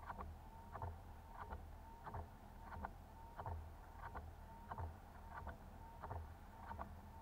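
Windshield wipers sweeping across rain-wet glass, a short knock about every two-thirds of a second with a faint squeak on each stroke, over the low steady idle of the Camaro SS's V8.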